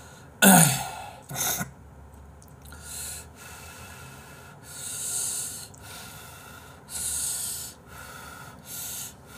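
Ramen noodles being slurped from a bowl in a series of sucking pulls, about six in all; the first, about half a second in, is the loudest.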